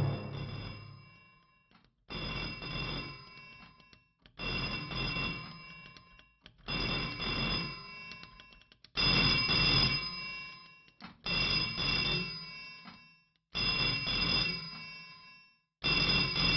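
Old candlestick telephone's bell ringing, seven rings a little over two seconds apart, each fading out before the next: an incoming call.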